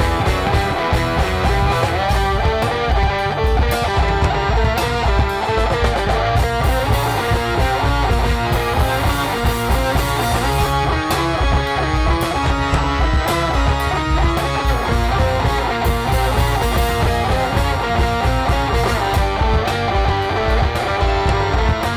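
Rock band playing loud, steady rock music: electric guitar over drums.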